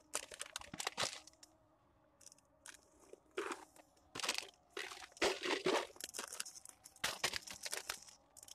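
Plastic snack wrappers crinkling as they are picked up and moved about, in irregular bursts of rustling.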